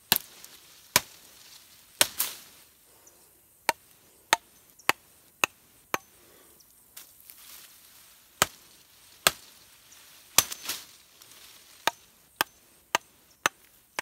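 Machete chopping through a cassava stem to cut it into planting cuttings: a string of sharp single chops, mostly half a second to a second apart, with a few short pauses.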